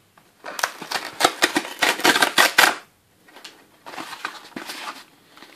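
Perforated tear strip being ripped off a cardboard mailer: a dense run of crackling snaps for about two seconds, then a short pause and quieter crackling of the cardboard as it is pulled open.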